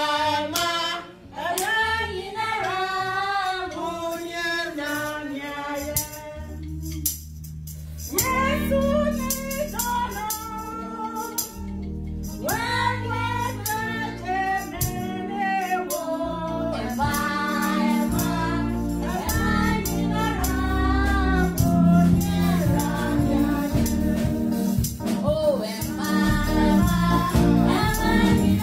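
A woman singing a gospel song into a microphone. She starts almost alone, and about seven seconds in a low instrumental accompaniment joins her, with percussion keeping time.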